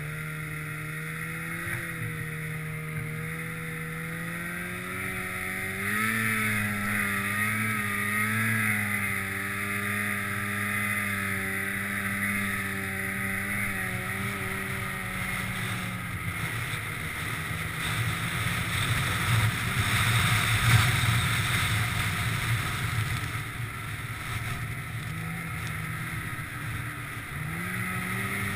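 Polaris Pro RMK snowmobile's two-stroke engine running under throttle while sidehilling; its note steps up and wavers about a quarter of the way in, then is buried under a louder rushing noise through the second half, and rises again near the end.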